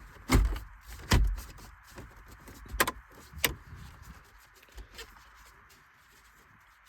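Knocks and clunks of the replacement radio head unit being worked into place in the dashboard: two loud, deep thumps in the first second and a half, then a few sharper, fainter knocks that die away after about five seconds.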